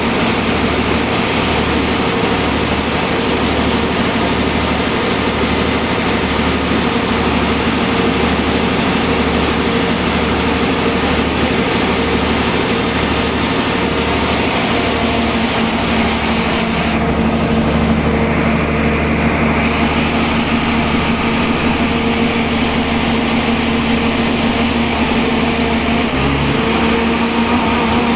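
Diesel generator set running loudly and steadily at rated speed on its test run after an AVR swap, with its alternator putting out normal voltage at 50 Hz. A low throb pulses about once a second for roughly the first half, then fades.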